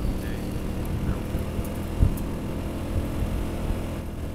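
Honda Helix scooter's single-cylinder engine running steadily at cruising speed, under wind and road noise. A single thump about two seconds in.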